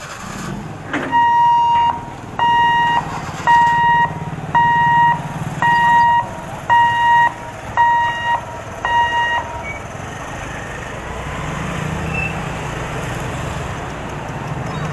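Level-crossing barrier warning buzzer beeping about once a second, eight beeps in all, as the boom gates lift. Motorbike and car engines run underneath and carry on after the beeping stops.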